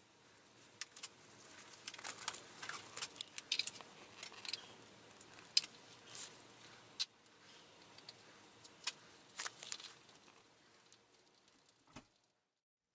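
Rustling, crinkling and sharp clicks of gloved hands handling plastic: disposable gloves being pulled on, then the clear plastic pack of a 5-minute epoxy syringe being opened. The sounds stop abruptly near the end.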